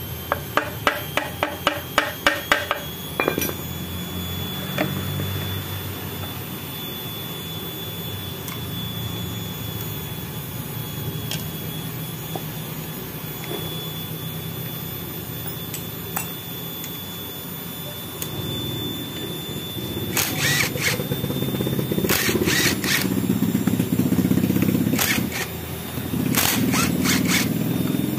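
Handheld power impact tool on a Honda Megapro's clutch centre nut, rattling in short bursts in the last several seconds, over a steady low mechanical hum. A quick run of about ten sharp clicks comes at the start.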